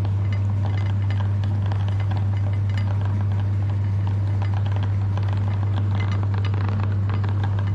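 Electric meat grinder running steadily with a constant motor hum, its parts rattling and clinking as it works.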